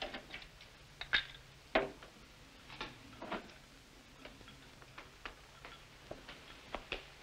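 Light, irregular clinks and taps of glasses and bottles as drinks are mixed at a home bar, about a dozen over several seconds, a few ringing briefly, over a faint steady hum.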